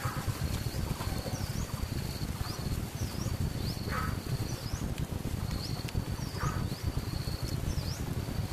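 Insect sounds: a high, rapidly pulsed trill broken by short chirps that keep repeating, over a steady low rumble.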